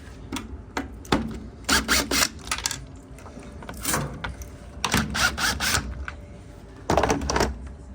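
Clicks and rattling from hand work on a washer's water inlet valve, which is held by two 1/4-inch screws and one wiring plug. Single clicks and knocks of hard plastic and metal are scattered throughout, with three short bursts of rattling about two, five and seven seconds in.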